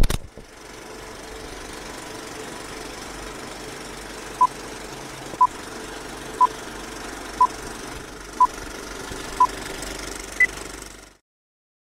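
Old-film countdown leader sound effect: a steady film projector clatter and hiss with a low hum, opening with a click. Six short beeps sound a second apart, then one higher beep, and the sound cuts off suddenly.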